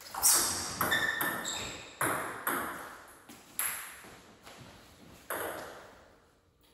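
Table tennis ball clicking off paddles and bouncing on the table: about eight sharp pings, bunched in the first two and a half seconds and then spaced out, each ringing out briefly in the room.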